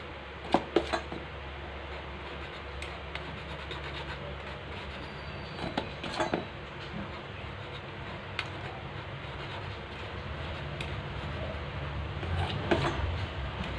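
A metal spoon scraping and rubbing flour through a fine-mesh stainless-steel strainer, with short clicks of metal on metal about half a second in, around six seconds in and near the end. A steady low rumble runs underneath and grows a little louder near the end.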